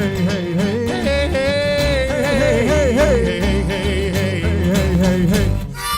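Live string band playing. A bass line pulses steadily under a wavering sung melody, and the music dips briefly near the end.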